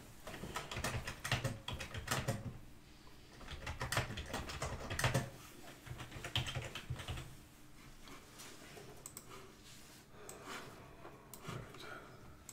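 Typing on a computer keyboard: quick runs of key clicks, busiest in the first half, thinning out to scattered taps later.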